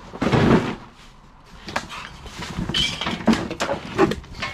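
Cardboard box flaps pulled open with a loud scraping rustle, then hands rummaging through the contents of the box: a run of rustles and light knocks.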